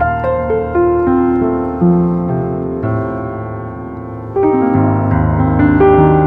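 Upright piano played solo: a line of single notes stepping down in pitch over held low notes, then a louder, fuller chord struck about four and a half seconds in.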